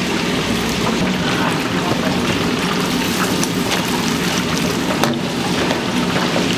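Chicken deep-frying in hot oil: a steady crackling sizzle with many small pops.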